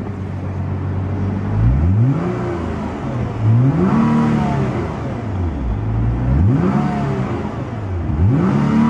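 2010 Nissan GT-R's twin-turbo 3.8-litre V6 at idle, then revved four times with the car in Park, roughly one blip every two seconds. Each rev climbs to around 4,500–5,000 rpm, where the rev limiter stops it, and falls back to idle.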